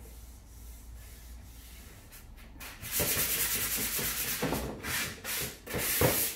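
Sanding sponge rubbed over a chalk-painted wooden drawer top, smoothing the dried paint between coats to remove brush marks. It is quiet at first, then a run of several loud scratchy strokes starts about three seconds in.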